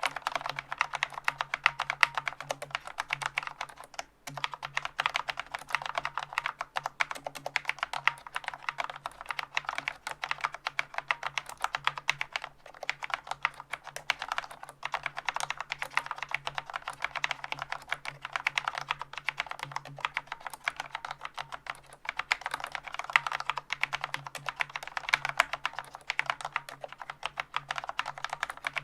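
Continuous fast typing on a Corsair K70 MK.2 Low Profile RAPIDFIRE keyboard with Cherry MX Low Profile Speed (silver) linear switches: dense clacking keystrokes, with a brief pause about four seconds in. The switches are unlubricated, so a tinny spring ping comes through, and the stabilizers add some wire rattle.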